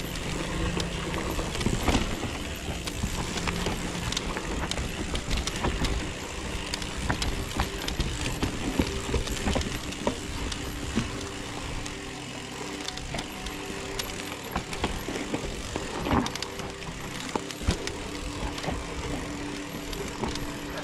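Electric mountain bike riding down a dry dirt forest trail: tyres rolling over dirt and roots, and the bike's chain and frame rattling, with many small clicks and knocks over bumps. A steady low hum runs beneath it at times.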